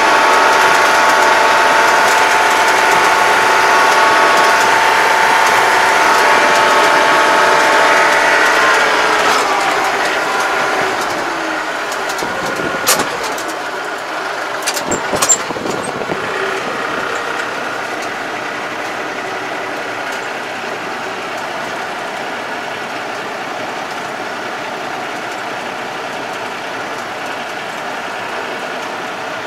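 Yanmar tractor engine heard from inside the cab, running at road speed with a strong whine. About nine seconds in, the pitch falls and the sound drops as the tractor slows. A few sharp clicks follow, and then the engine settles to a steady idle.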